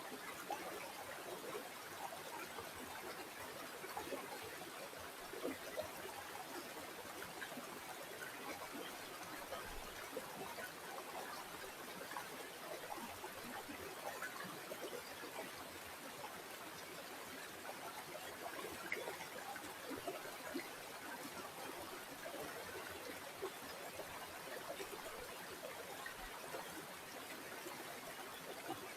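Flowing river water trickling and babbling steadily, a dense run of small splashes with no pauses.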